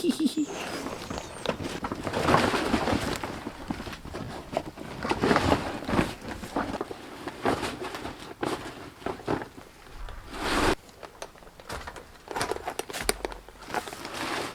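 A cut roofing sheet being handled and lifted into place: irregular scraping, rustling and knocks of the sheet against the roof.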